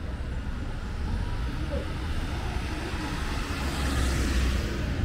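Street traffic: a steady low engine rumble, with a vehicle passing close whose noise swells to a peak about four seconds in.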